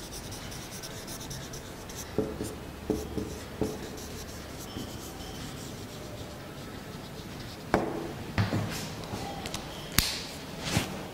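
Marker pen writing on a whiteboard: faint rubbing strokes and a few soft taps, then several sharp clicks and knocks in the last few seconds.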